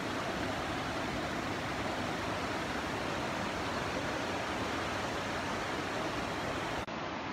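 Steady rush of fast-flowing muddy floodwater pouring down a street. A brief click near the end, after which the sound is slightly duller.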